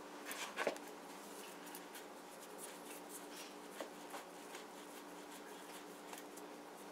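Hands pinching off and rolling cassava roti dough into balls in a plastic bowl: faint soft rustling and patting, with a brief louder brush about half a second in. A steady low hum runs underneath.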